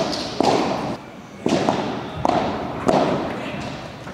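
Padel ball hits: the ball struck by rackets and bouncing on the court and glass walls, about five sharp knocks over four seconds, each ringing on in the large hall.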